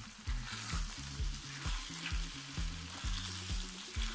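Eggplant stew frying and sizzling in a pan while a silicone spatula stirs and scrapes through it. Background music with a steady bass beat plays over it.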